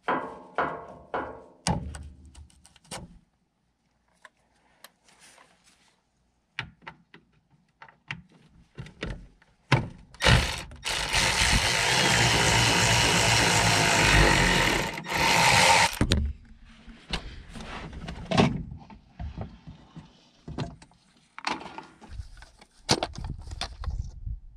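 Cordless power tool running for about six seconds near the middle, backing out the 8 mm bolts that hold the truck's fuel water separator. Around it come scattered clicks and knocks of tools and parts being handled.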